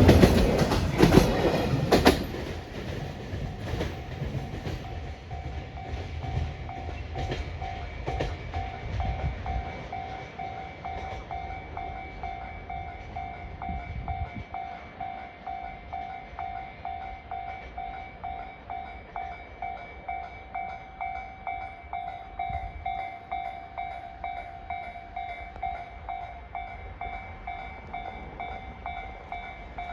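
A freight train rattles and rumbles past, loudly at first, and drops away sharply about two seconds in. Fainter wheel rumble and clicking carry on, under the level crossing's warning signal ringing steadily in a quick regular pulse: the crossing is still closed.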